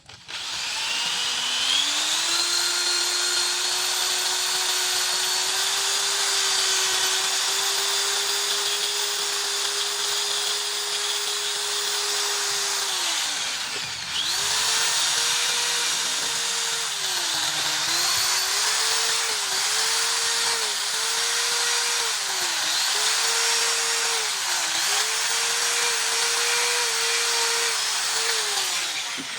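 Handheld electric power tool spinning up and running steadily, stopping about halfway, then restarting and slowing briefly again and again as it is pressed against the work, with a loud hiss from the work surface.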